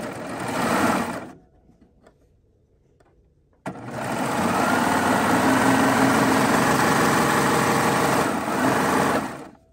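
Baby Lock Triumph serger running at speed, sewing a seam joining two fabric squares. It winds down about a second in, is still for a couple of seconds, then starts suddenly and runs steadily for about six seconds before stopping near the end.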